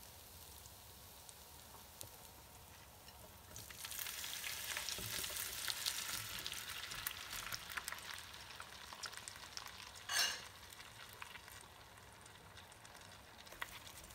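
Butter and garlic sizzling in a skillet; about four seconds in, shrimp go into the pan and the sizzling grows louder and crackles as they are stirred with a silicone spatula. About ten seconds in there is one brief, sharp scrape or clatter.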